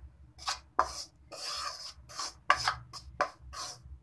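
Steel spoon scraping through ghee-roasted water chestnut flour against the bottom of a steel kadhai, about ten quick scraping strokes with one longer scrape in the middle. The flour is stirred off the heat to keep it from burning in the hot pan.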